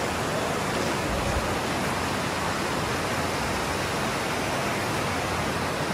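Steady rushing noise of fast-flowing water, without breaks.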